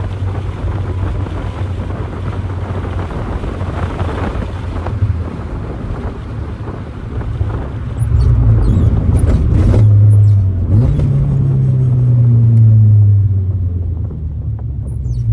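1990 Mazda Miata's 1.6-litre four-cylinder engine running under way, with road noise, heard from inside the car. It gets louder about halfway through, and the engine note climbs as the car accelerates, then holds and eases off near the end.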